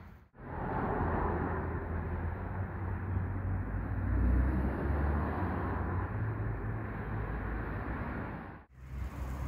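Outdoor background noise: a steady low rumble with a hiss over it, starting abruptly and cutting off suddenly near the end.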